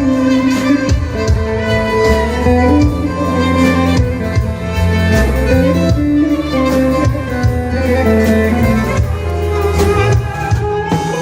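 Instrumental break of an arabesk song: a violin-led string melody over a steady bass line and a regular drum beat, with no singing.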